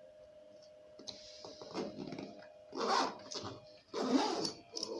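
Handling noise from assembling a saxophone and its neck strap: a few light clicks, then several louder rustles and scrapes, over a faint steady hum.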